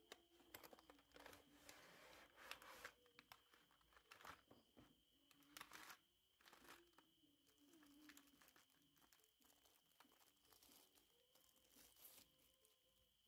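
Faint handling of packaging: a cardboard knife-set box being opened and a plastic tray of knives under clear plastic wrap slid out and handled, with scraping, rustling and crinkling that is busiest in the first six seconds and lighter after.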